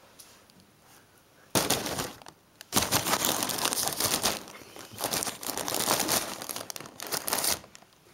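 Clear plastic packaging film in a cardboard box crinkling and rustling loudly, stirred by a Russian Blue kitten moving about inside it. It starts about a second and a half in with a short burst, pauses briefly, then crackles on in uneven bursts until just before the end.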